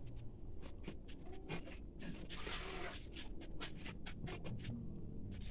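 Grated coconut being squeezed by hand in a perforated steel colander to press out coconut milk: a string of short wet crackles and squelches, with a longer wet rush a little over two seconds in.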